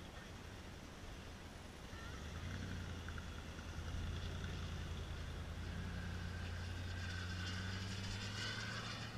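Turbine engine of a radio-controlled Falcon 120 model jet in flight: a steady low rumble that grows louder about two seconds in, with a high whine rising over it near the end as the jet comes past.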